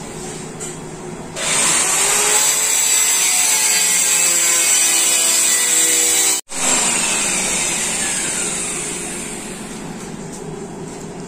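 Handheld electric power cutter running and cutting, loud, with a whine that shifts in pitch as it bites; it starts about a second and a half in, stops for an instant midway, then slowly dies down.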